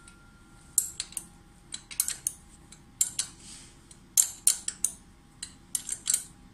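Metal wrench clicking and clinking on the nut and hub of a Peugeot 103 moped's new nickel-plated belt pulley as the nut is tightened. It comes as several short clusters of sharp metallic clicks, loudest a little past the middle.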